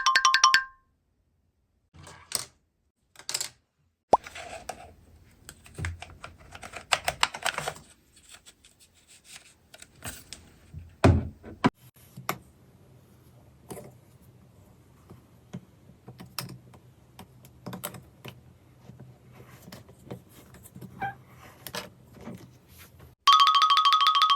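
Slime being squished, pressed and pulled apart, with irregular sticky pops, plops and clicks and one louder knock midway. A bright, ringing electronic chime starts near the end.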